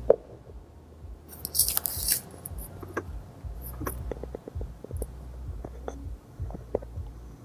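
A plastic bag rustles briefly about one and a half seconds in, then scattered light clicks and knocks come as the centre armrest compartment is closed and handled, over a low steady hum.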